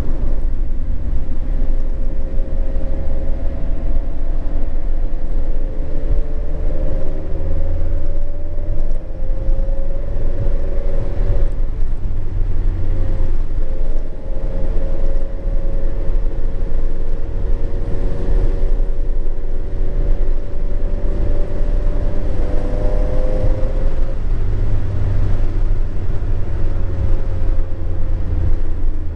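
Mazda MX-5 Miata's 2.0-litre SkyActiv four-cylinder, fitted with a Skunk2 Alpha 4-1 header and Remark cat-back exhaust, cruising at a steady throttle, heard from inside the cabin: a steady low exhaust rumble.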